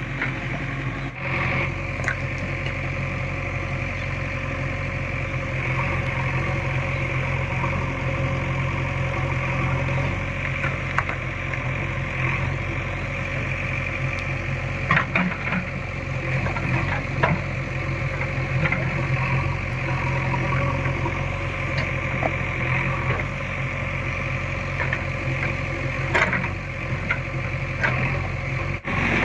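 JCB 3DX Eco backhoe loader's diesel engine running steadily, with a few sharp knocks standing out over it.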